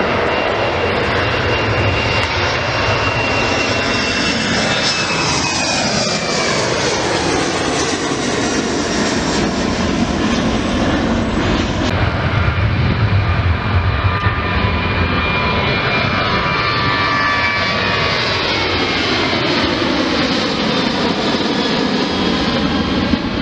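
Two turbofan airliners climbing out past the listener, one after the other: first an Embraer E190 with General Electric CF34 engines, then, after a cut about halfway, a Boeing 737-800 with CFM56 engines. Each is a steady loud jet roar with a high whine that slowly drops in pitch as the aircraft goes by.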